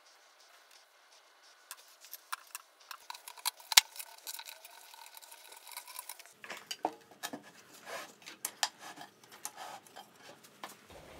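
Small wooden parts and a wooden jig being handled: scattered light clicks and knocks of wood on wood, with one sharp knock about four seconds in.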